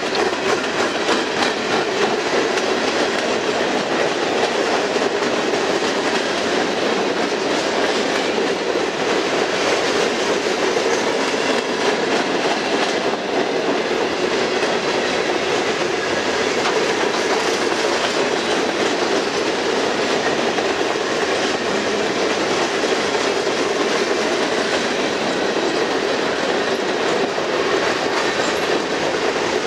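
Cars of a long, heavy mixed freight train (boxcars, gondolas, tank cars) rolling past: a steady rumble with the wheels clacking over the rail joints.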